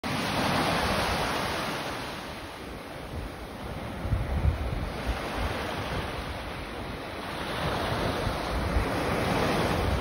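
Small waves washing up a sand beach: the hiss of surf swells, eases off about two seconds in, and builds again as the next wave comes in near the end. Wind buffets the microphone in low gusts.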